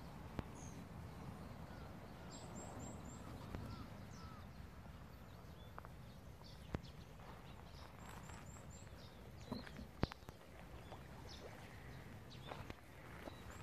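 Small birds chirping twice in quick runs of three or four high notes over a low steady outdoor rumble, with a few sharp clicks, which are the loudest sounds.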